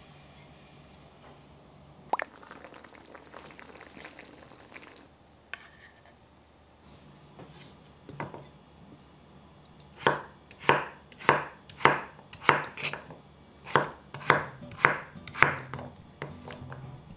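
A chef's knife chops peeled potatoes into bite-size chunks on a wooden cutting board. In the second half there is a steady run of sharp knife strikes, about two a second. Before that come a single knock, some rustling and a couple of clicks.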